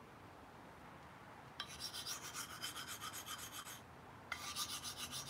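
Knife blade stroked rapidly back and forth on a handheld sharpening stone, making a quick rhythmic scraping. It starts about a second and a half in, breaks off briefly near four seconds, then resumes. The stone is reworking a botched edge whose tip has been rounded off.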